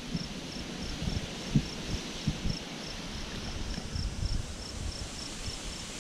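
A cricket chirping steadily, a short high chirp about three times a second. Under it there are low uneven rumbling and a few soft bumps.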